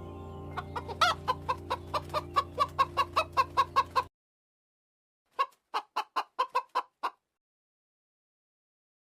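Chicken clucking in a rapid run, about four short calls a second, over soft background music. The calls and the music cut off suddenly about four seconds in. After a moment of silence comes a shorter run of about seven clucks.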